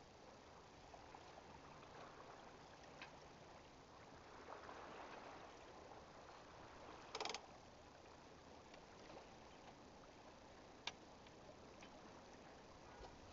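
Near silence: faint steady background hiss, broken by a short noisy burst about seven seconds in and a single sharp click near eleven seconds.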